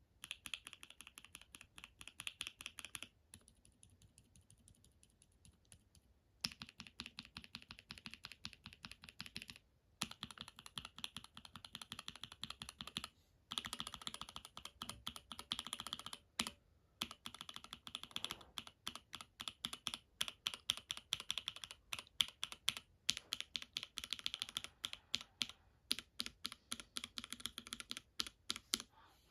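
Mechanical keyboard switches in a switch tester, pressed rapidly over and over. A run of clacks lasts a few seconds, breaks off briefly, and moves on to the next switch. One stretch about four seconds in is much softer than the rest.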